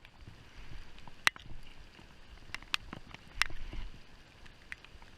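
Scattered sharp clicks and knocks, some seven of them at uneven intervals, over a faint steady hiss of water around a small fishing boat, with a brief low rumble a little past the middle.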